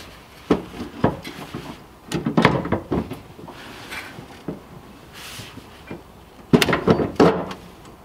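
Metal clicks, knocks and clatter of hand tools and bolts as a hydraulic handbrake is bolted to its mounting bracket: two single knocks early, then two bursts of rapid clattering.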